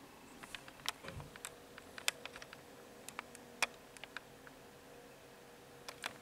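Light, irregular clicks and ticks of handling noise, with a faint steady hum underneath.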